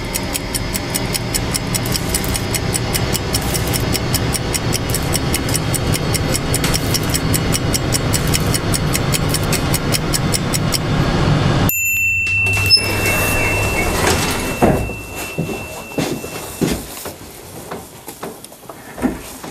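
Fast, even clock ticking over a low rumble that slowly swells for about eleven seconds, then cuts off abruptly. Then a steady high tone sounds for about five seconds inside the elevator car, followed by a few faint knocks and shuffles.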